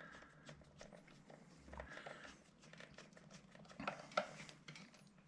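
Faint small clicks and handling noises of an M6 nut being put onto the screw through the battery's positive terminal and the charger lead's terminal, with a couple of sharper clicks about four seconds in.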